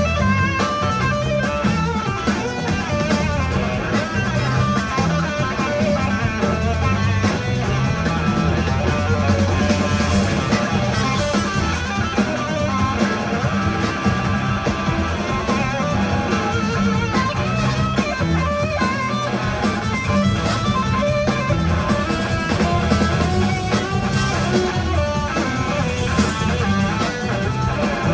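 Live rock band playing an instrumental passage: two electric guitars over drums, continuous and loud, with no singing.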